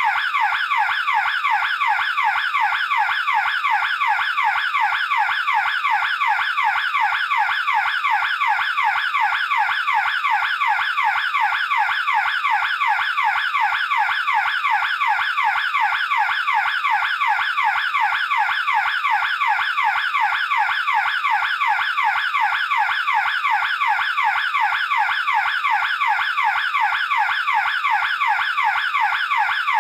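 Burglar alarm siren sounding steadily: a rapid sweeping wail that repeats evenly several times a second, without a break.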